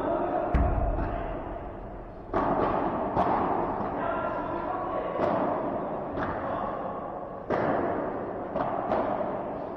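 Padel rally: sharp, irregular knocks of the ball off rackets and the court walls, about a dozen of them, with one heavier thud about half a second in, over steady background noise.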